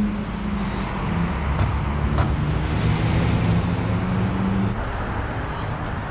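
Road traffic: a steady engine hum that stops about three-quarters of the way through, over the low rumble of passing cars.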